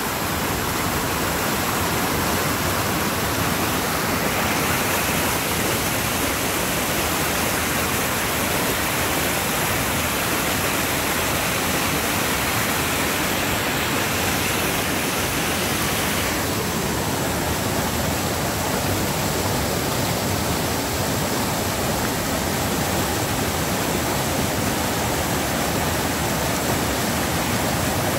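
Rain-swollen creek rushing through rapids: a steady, loud rush of fast water, its higher hiss easing a little about two thirds of the way through.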